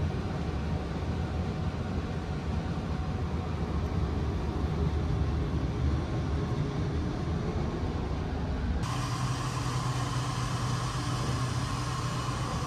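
Steady low rumble inside a stationary train carriage. About two-thirds of the way through it changes abruptly to an even hum with a faint held whine, like the carriage's ventilation and air-conditioning running.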